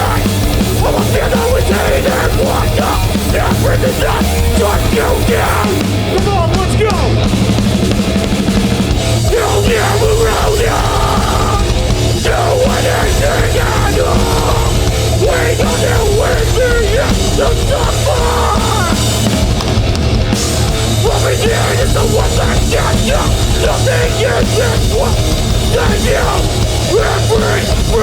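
Hardcore punk band playing live at full volume: distorted guitars, bass and drums in a steady, dense wall of sound, with shouted vocals over it.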